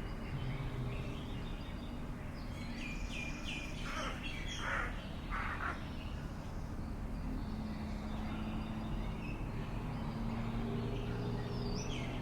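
Birds calling: a few short falling high notes about three seconds in, then three harsh calls between about four and six seconds, over a steady low background drone.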